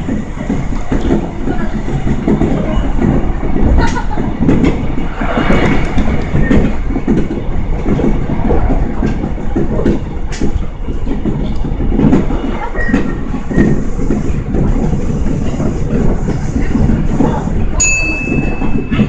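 Kintetsu Nagano Line electric train running, with a steady rumble and the clatter of wheels over rail joints. A short high steady tone sounds near the end.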